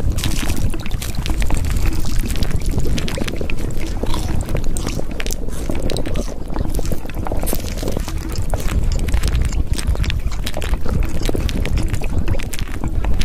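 Continuous rushing water noise, steady in level and thick with small splashes and crackles.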